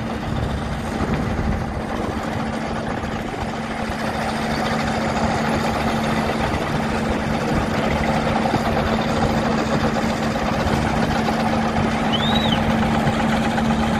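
Mobile impact stone crusher running under load: a steady mechanical hum over a dense, continuous rattle of rock being broken and discharged. A brief high chirp sounds once near the end.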